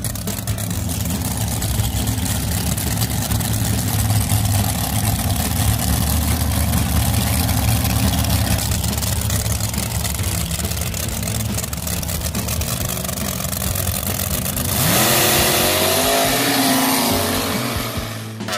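Sand dragster's V8 engine running at low revs as the car rolls on the sand. About fifteen seconds in, engines go to full throttle with a sharp rise in pitch and level as dragsters launch down the sand track.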